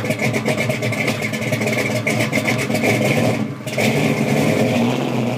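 Car engine running loud, with a rapid pulsing beat and a short dip in level about three and a half seconds in.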